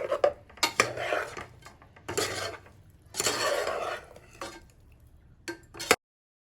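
A utensil stirring food in a pan, scraping and clinking against the metal in about four separate strokes with a few sharp clicks. It cuts to silence near the end.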